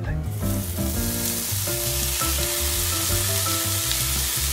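Diced bacon sizzling in a preheated cast-iron skillet: the hiss starts suddenly as the bacon hits the hot pan, then holds steady as it fries and is stirred with a wooden spoon.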